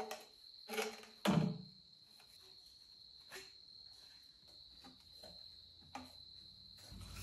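White PVC pipe and fittings being handled, pushed together and set down on a concrete floor: several hollow plastic knocks and clacks, the loudest about a second in. Under them, crickets keep up a steady high trill.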